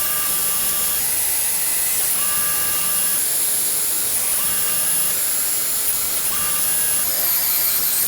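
Steady hiss of running machine-tool coolant, with faint high whines that come and go every second or so.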